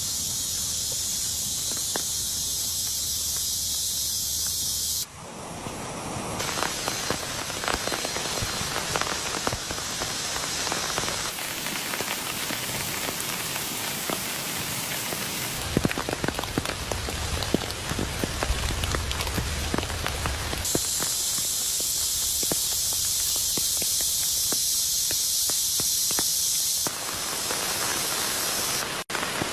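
Rain falling: a steady hiss that switches abruptly several times to close patter with many short crackling ticks.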